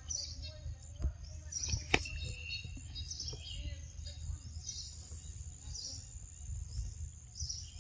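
Birds chirping over and over, a short call every second or so, against a steady high insect drone and a low rumble, with a few sharp clicks, the loudest about two seconds in.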